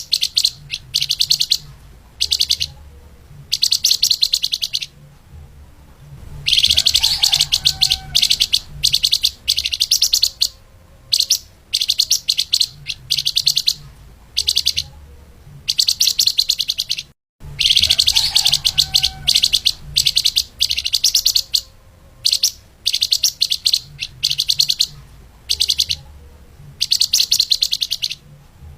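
Flamboyan (lemahan) songbird singing fast, tightly packed high-pitched trills in bursts of up to about two seconds, with short pauses between. A faint low hum runs beneath. The sound cuts out completely for an instant a little past halfway.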